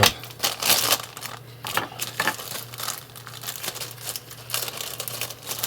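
Packaging crinkling and rustling in irregular crackles as it is handled and pulled open to unwrap a stethoscope.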